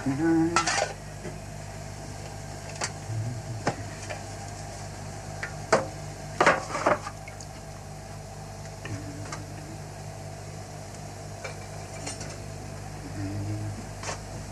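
Metal kitchenware being handled: tins, mugs, pots and a kettle clink and knock now and then, loudest in a cluster about six to seven seconds in, over a steady low hum.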